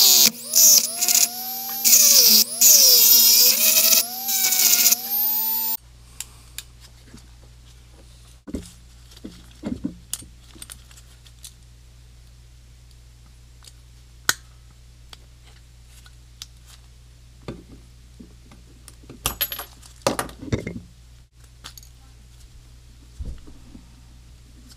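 Handheld Dremel-style rotary tool with a tiny burr grinding off a stripped carburetor screw head: a high whine that wavers in pitch as the burr bites, cutting off suddenly about six seconds in. After it come scattered light metallic clicks and clinks of small carburetor parts being handled.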